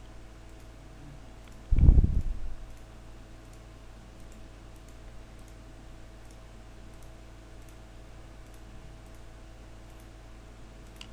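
Faint computer mouse clicks, scattered one at a time while polygons are selected. A single loud low thump sounds about two seconds in, over a steady low electrical hum.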